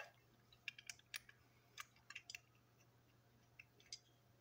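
Faint, scattered light clicks and taps of small plastic and metal toy train parts being handled on a tabletop.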